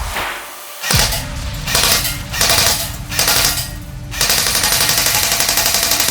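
Airsoft Sa vz. 58 replica firing on full auto: several short bursts, then one long continuous burst from about four seconds in.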